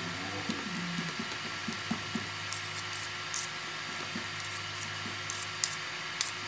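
Metal putty knives scraping, tapping and squishing through wet ceramic clay on a tabletop, with short sharp clicks every second or so. A steady hiss and low hum run underneath.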